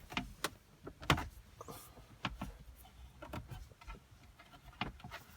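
Irregular clicks and knocks of wiring and plastic dash parts being handled and pushed into a car dashboard. The sharpest knock comes about a second in.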